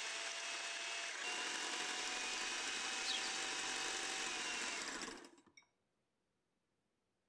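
Electric hand mixer beating eggs in a glass bowl: a steady motor whine with the beaters whirring through the liquid, stepping up slightly in pitch about a second in. It is switched off about five seconds in and winds down to silence.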